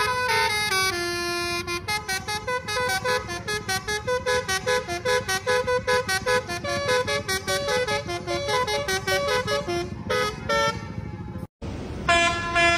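Basuri 'telolet' musical bus horn playing a fast melody of short, stepping notes, about four a second, over a low rumble. The sound cuts out for a moment near the end.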